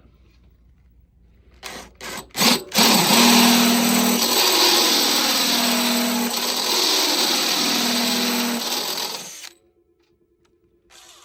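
Power drill with a step drill bit boring a 5/8-inch hole: a few short trigger bursts, then about seven seconds of steady drilling that cuts off suddenly. A faint hum follows briefly near the end.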